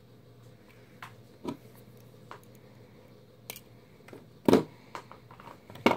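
Scattered small clicks and knocks of jewelry pliers and fine craft wire being handled, the two loudest about four and a half seconds in and just before the end.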